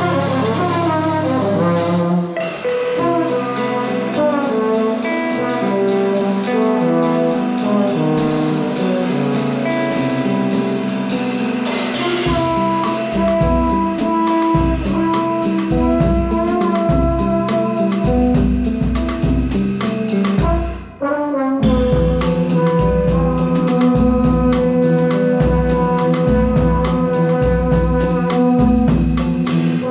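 Jazz trio playing: a trombone through effects pedals leads with long held notes over guitar and drums, which keep a steady low beat in the second half. The band drops out for a moment about two-thirds of the way through.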